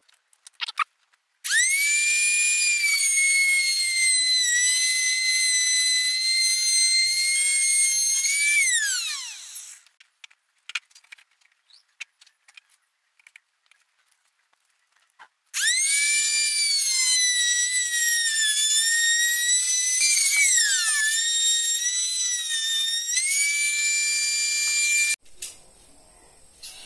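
Handheld LITH trim router with a round-over bit running at high speed with a high whine as it rounds the edge of a wooden bed slat. It runs for about eight seconds and winds down falling in pitch, then after a pause with a few handling clicks it runs again for about ten seconds and cuts off near the end.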